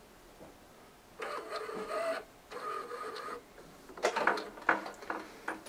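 Inkjet printer powering up: the print head carriage motor whirs in two short runs, about a second in and again a moment later, as the carriage moves along its rail. A few clicks and knocks follow near the end as the power cord is pulled.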